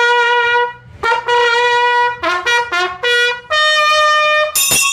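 A trumpet fanfare: two held notes, a quick run of short notes, then a higher held note. Near the end a town crier's handbell starts ringing.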